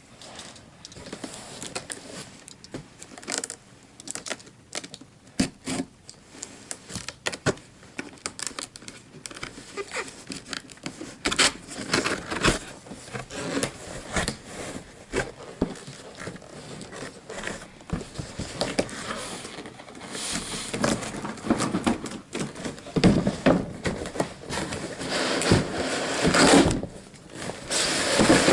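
Cardboard toy box being opened and its contents pulled out: irregular tearing, rustling and sharp clicks, growing heavier in the second half as Styrofoam packing is scraped, creaks and cracks apart.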